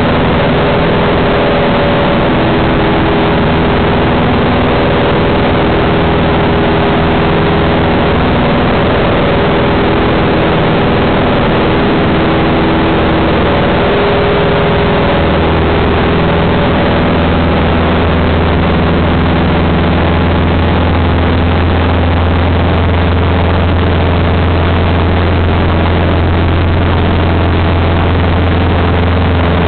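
Loud, steady drone of a single-engine Cessna's piston engine and propeller heard inside the cabin in flight. About halfway through the low hum grows stronger and the engine note shifts slightly.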